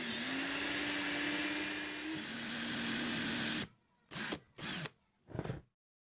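Cordless drill running steadily while it spins a small plastic part against sandpaper, with the hiss of abrasion over the motor whine; the motor's pitch drops a little about two seconds in. After it stops, three short bursts of sound follow.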